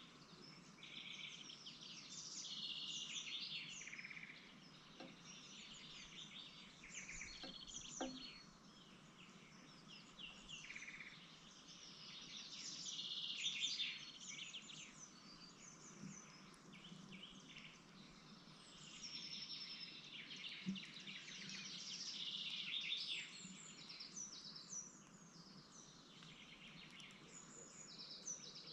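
Small birds chirping and twittering in rapid, high-pitched bursts that come and go, over a faint steady hiss.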